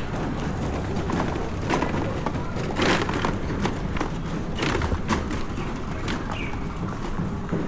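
Outdoor walking ambience: a steady low rumble with scattered, irregular knocks and clacks, loudest about three seconds in, and faint voices.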